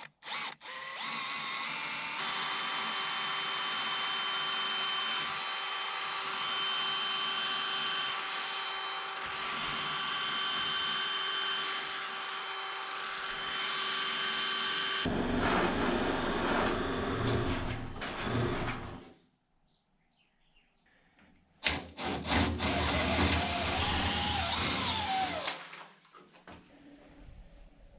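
DeWalt cordless drill with a long bit boring through cement-board siding into a thick wooden wall: a steady motor whine for about fifteen seconds, then rougher, louder drilling that stops. After a short pause the drill runs again for a few seconds.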